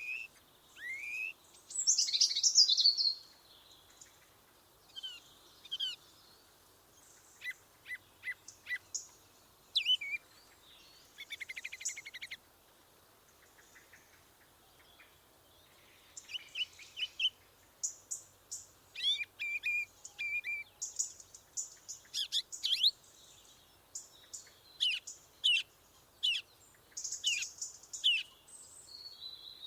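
Songbirds singing and calling: short chirps, whistles and trills, with a loud falling trill about two seconds in, a lull midway, then busier calling.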